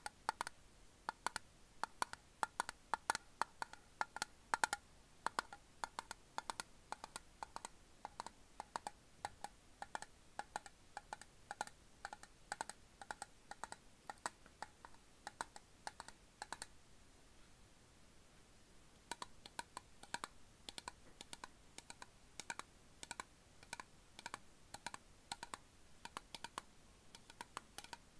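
Fingernails tapping on a Sakuma Drops candy tin: a rapid, uneven run of light clicks that stops for about two seconds past the middle, then starts again.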